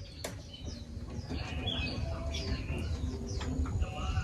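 Several birds chirping and twittering in many short, high calls, over a low rumble that slowly grows louder.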